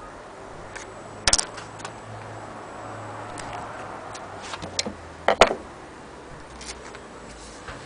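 A few sharp clicks and taps, the loudest about a second in and again near five and a half seconds, with fainter ticks between, over a quiet steady background.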